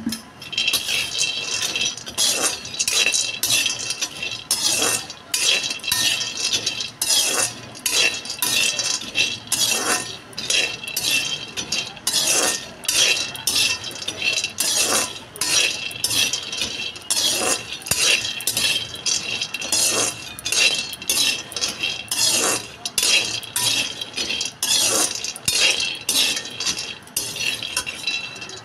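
Perforated metal skimmer scraping and clinking against a metal kadhai as almonds are stirred while roasting, about two strokes a second, with the pan ringing.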